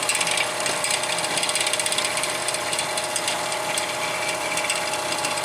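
Old 1930s Sears Craftsman bandsaw running on its old electric motor: a steady hum with a fast, even ticking rattle, pretty quiet for a machine of its age.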